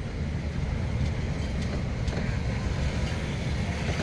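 Steady low rumble of a car in motion, engine and road noise heard from inside the vehicle.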